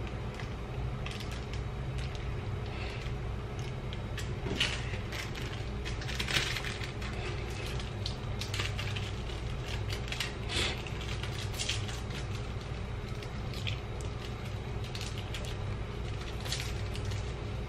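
Plastic seasoning sachets from an instant yakisoba tray crinkling and being torn open by hand, in short irregular rustles every second or two, over a steady low hum.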